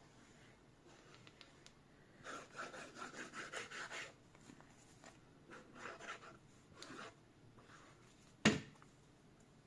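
Nozzle of a squeeze bottle of liquid craft glue scraping across card stock as glue lines are drawn on, in several scratchy strokes. A single sharp knock near the end.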